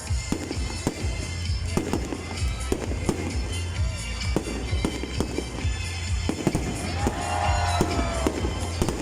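Fireworks display: rapid bangs and crackling from exploding shells, with music playing.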